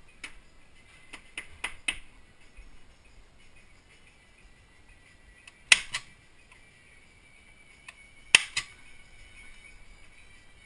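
Two sharp clacks of a long-reach stapler driving staples into the spine of a card-covered zine, about two and a half seconds apart, one midway and one toward the end. Lighter clicks and paper handling come in the first two seconds.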